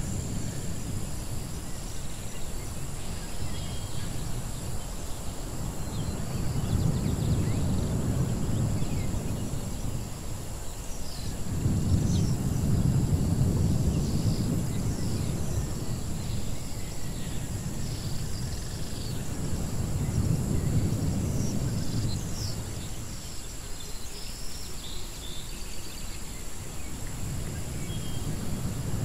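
Outdoor jungle-ruins ambience: a low wind rumble that swells and fades several times, under scattered high bird chirps and a steady high-pitched whine.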